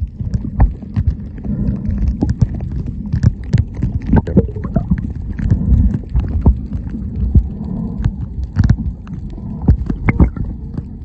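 Muffled underwater noise heard through a submerged camera: a low, steady rumble broken by frequent irregular clicks and knocks.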